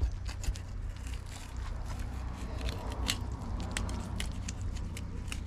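Fillet knife cutting through a fish, with irregular small clicks and crunches as the blade works along the bones, over a low steady rumble.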